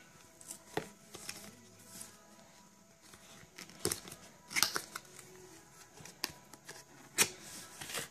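Cardboard headphone box and its packaging being handled and pried open: scattered rustles and small clicks, with a few sharper snaps about four and seven seconds in.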